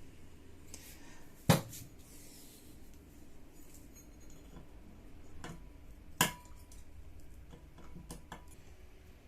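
Metal tools clicking and clinking against a circlip deep inside a Honda PCX 150's secondary pulley as the circlip is pried out. There is a sharp click about one and a half seconds in, another just after six seconds with a brief ring, and lighter taps in between and near the end.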